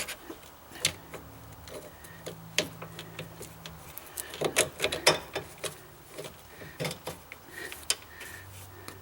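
Irregular light clicks and knocks of metal parts being handled while a sway bar end link is put together, as washers, bushings and a nut go onto the link bolt, with a cluster of sharper knocks about halfway through. A faint low steady hum runs underneath.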